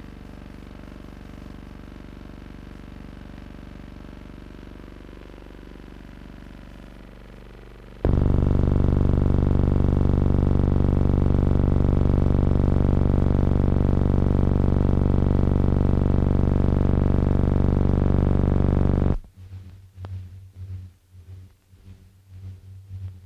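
A steady low hum made of many even tones, with no real-world sound. It jumps much louder about eight seconds in, then near the end breaks into quieter, irregular low throbbing pulses.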